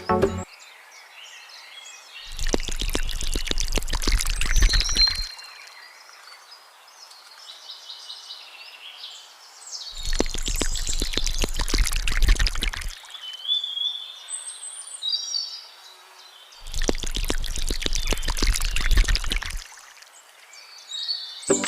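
Three bursts of dense rattling clatter, each about three seconds long, with birds chirping in the gaps between them.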